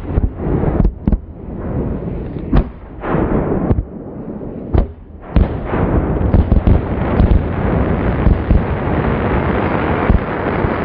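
A 63 mm Czech firework cake firing, with launch shots and shell bursts overhead. For the first five seconds there are separate sharp bangs every half second to a second. From about five and a half seconds in, the shots merge into a dense, continuous barrage.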